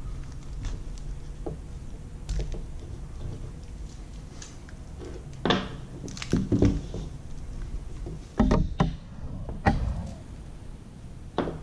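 Handling noise as a webcam's USB cord is freed from its twist tie and uncoiled onto a cloth-covered table: a low rumble with scattered knocks and clicks from the cord's plug and the camera, loudest about halfway through and again near nine seconds.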